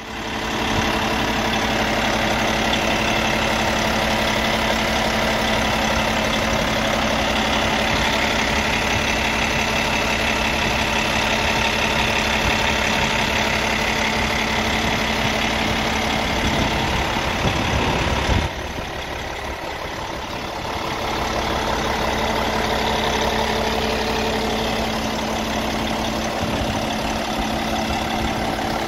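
Cummins ISX15 inline-six diesel engine idling steadily, heard up close in the engine bay; the sound drops in level for a few seconds about two-thirds of the way through, then returns.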